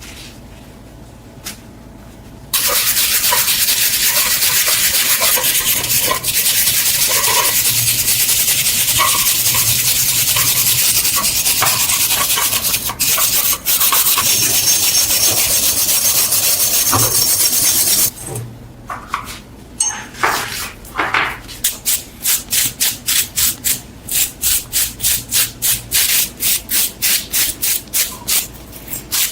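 Sanding: a loud, steady, harsh hiss starts a couple of seconds in and runs for about fifteen seconds, then cuts off. It gives way to rhythmic back-and-forth sanding strokes, about two to three a second.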